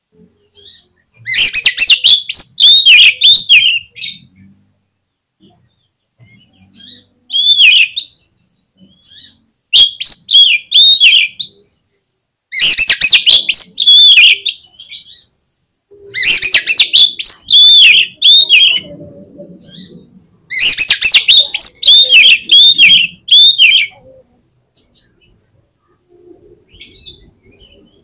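Oriental magpie-robin (kacer) song: about six loud bursts of rapid, sharp, pitch-bending whistled notes, each lasting one to four seconds, with short gaps between, and a few faint single notes near the end.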